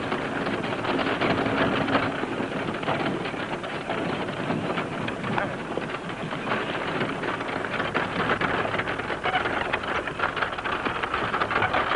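Dense, continuous clatter and scraping of bricks being shifted on a wagon load as it is searched, with many small knocks close together.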